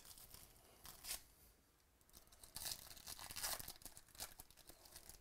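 Foil baseball card pack wrapper being torn open by hand, crinkling in several short bursts.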